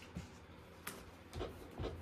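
A paintbrush striking and dragging across a stretched canvas on the wall: a sharp click a little under a second in, then dull thumps.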